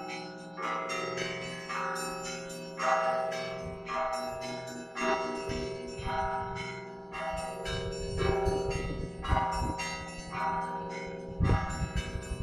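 Russian Orthodox church bells of a monastery belfry ringing: several bells of different pitches struck in a repeating pattern, heavier strokes about once a second with higher bells between, their tones overlapping and ringing on.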